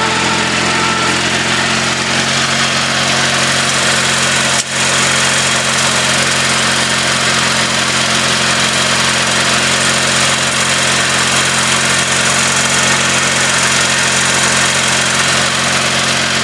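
Garden tractor engine running steadily under load as it pulls a stump uphill, with a momentary break in the sound about four and a half seconds in.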